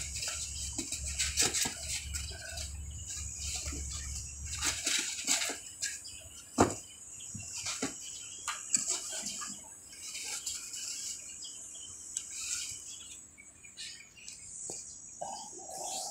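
Scattered sharp clicks and knocks, the loudest about six and a half seconds in, over a low hum that stops about five seconds in, with faint high chirping throughout.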